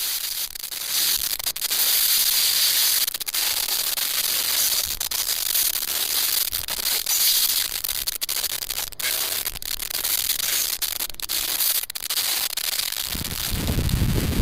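Continuous rustling and rubbing of brush against the camera as it is carried through swamp vegetation, with many small crackles and clicks over a steady hiss. It cuts off abruptly at the end.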